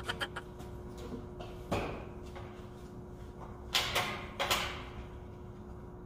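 A few short clattering knocks of handling: one a little under two seconds in and two close together around four seconds in, each dying away quickly, over a faint steady hum.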